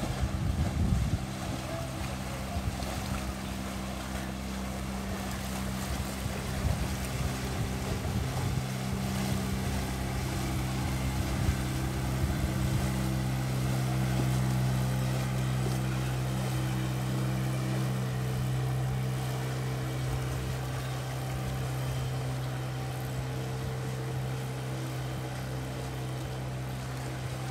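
Motor of a small fishing boat running steadily as it passes, loudest about halfway through and then slowly fading, with gusts of wind on the microphone near the start.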